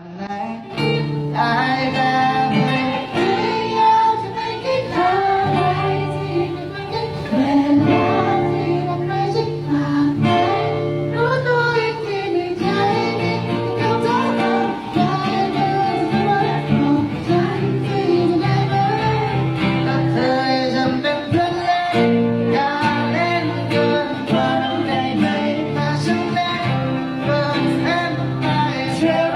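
A song sung over guitar accompaniment.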